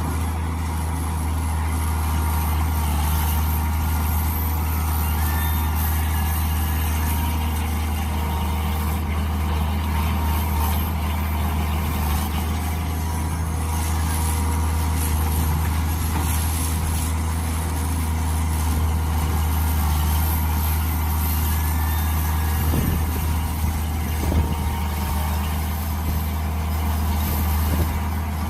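Mini excavator's engine running steadily, a constant low drone, with a couple of short knocks about two-thirds of the way through.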